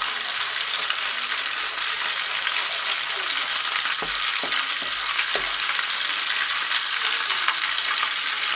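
A spoon stirring and scraping a thick egg mixture around a frying pan over a steady sizzle of frying, with a few short knocks of the spoon against the pan around the middle.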